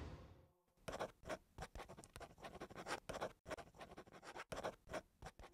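The tail of the music fades out, then a quill pen scratches faintly across paper in short, irregular strokes.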